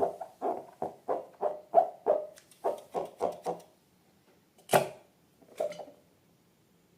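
Slime being squeezed and kneaded in quick, even squelches, about three a second, that stop about three and a half seconds in. Then comes one sharp, loud squelch and a softer one.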